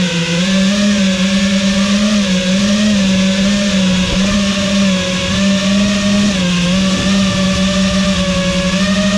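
FPV quadcopter's electric motors and propellers whining at a steady pitch that wavers slightly as the throttle changes, heard loud from the camera on board.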